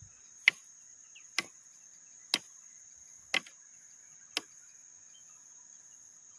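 A series of five sharp knocks about a second apart, over a steady high-pitched drone of forest insects. The source of the knocks is not identified.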